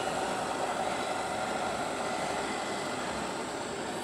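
Double-stack intermodal freight cars rolling steadily across a steel girder bridge, an even rumble of wheels on rail.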